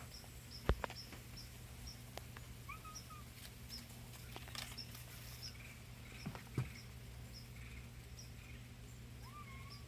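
Faint, high-pitched chirps of a small bird repeating about twice a second, with two short lower call notes about three seconds in and near the end, over a low steady hum; a couple of light knocks break in, one just under a second in and one about six and a half seconds in.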